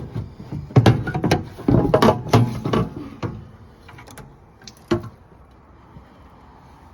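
Clatter and knocks of a furnace condensate collector box being worked free and handled: a run of sharp knocks and rattles over the first three seconds, then one more knock about five seconds in.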